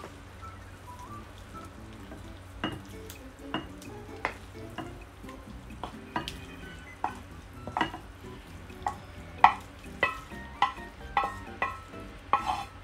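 Thick cooked laing being scraped out of a pan into a glass bowl with a spatula: soft wet scraping, broken by irregular sharp knocks of the utensil against the pan and bowl that come more often and more loudly toward the end.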